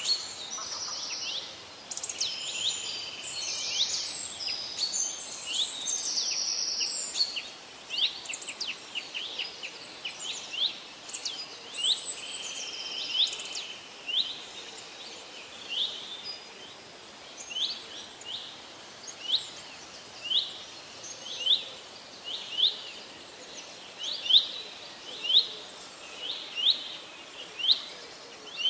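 Birds chirping: several overlapping chirps and trills for the first seven or so seconds, then a single short, sharp chirp repeated about once a second.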